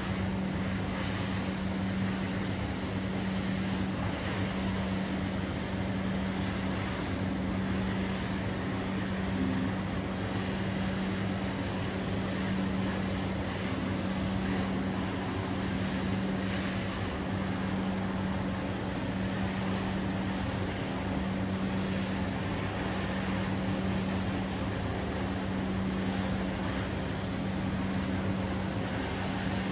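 Rug-cleaning machine running steadily: a constant motor hum with an even hiss over it.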